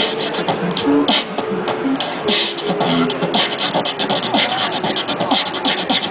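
Human beatboxer performing a fast, continuous beat with the mouth: sharp hissing hits over short hummed bass tones.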